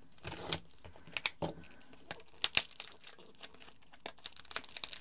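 Wrapping on a small boxed tarot deck being cut and torn open by hand: short, irregular crinkling crackles, with a sharp snap about two and a half seconds in.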